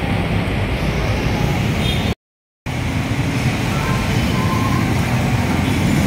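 Steady street traffic noise from mixed motorcycles, tricycles, jeepneys and trucks running on the road below. The sound cuts out completely for about half a second a couple of seconds in, then the traffic resumes.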